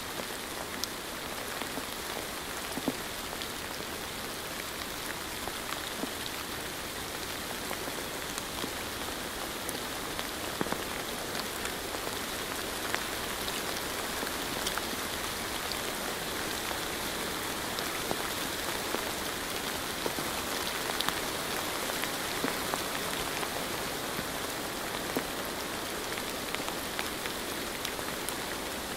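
Steady rain falling, a constant even hiss sprinkled with many separate drop hits.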